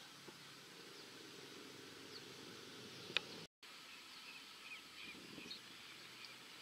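Faint outdoor ambience with small birds chirping, mostly in the second half. There is one sharp click a little after three seconds, and the sound cuts out for an instant just after it.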